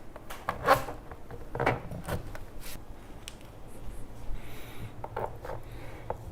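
Parts of a compost tumbler being handled and fitted during assembly: a series of irregular knocks, clicks and light rubbing.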